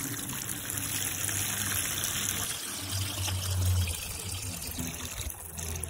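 Water from a garden hose splashing into a plastic bucket as it fills, a steady gushing rush. A brief low rumble rises about halfway through.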